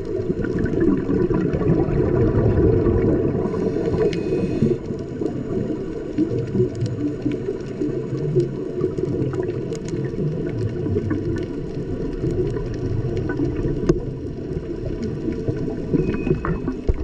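Underwater sound heard through a camera's waterproof housing: a dense, muffled rumble of moving water with many brief sharp clicks scattered through it.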